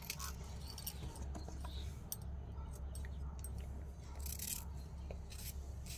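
Small knife slicing ivy gourds held in the hand: a scatter of soft crisp cuts and small clicks, over a steady low hum.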